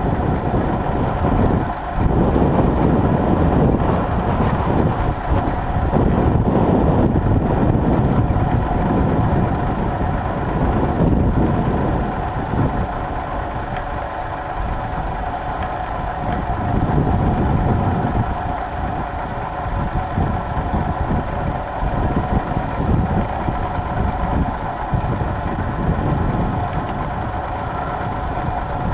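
Tractor engine running steadily under load while pulling a plough. Its note stays steady while the overall level swells and eases.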